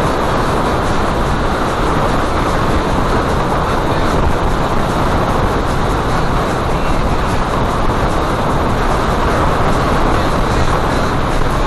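Steady rush of wind and engine noise from a CR5 motorcycle cruising at highway speed, picked up by a camera mounted on the bike.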